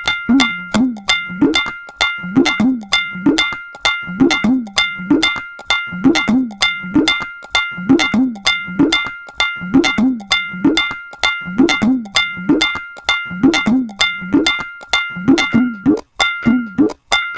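Tabla playing a steady, fast repeating rhythm cycle: ringing strokes on the treble drum (dayan) alongside bass-drum (bayan) strokes whose pitch bends up and down under the heel of the hand.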